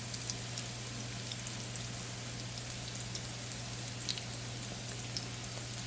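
Oil sizzling steadily in a frying pan as small sardine patties fry, with scattered small crackles and a steady low hum underneath.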